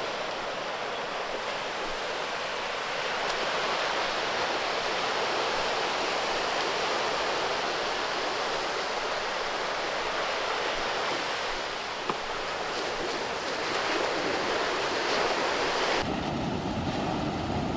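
Sea waves surging and washing over shoreline rocks: a steady rushing that swells and eases. Near the end it changes suddenly to a deeper, fuller rush.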